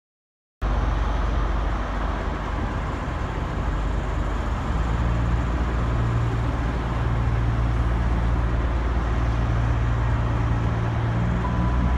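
Railway platform ambience: a stationary diesel train's engine idling, a steady low hum that grows stronger a few seconds in, under a general wash of noise. Near the end a single high tone sounds, the start of a station announcement chime.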